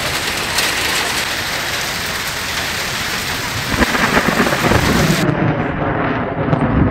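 Heavy rain with thunder. A low rumble of thunder swells about four seconds in, and the high hiss of the rain cuts off abruptly a little after five seconds.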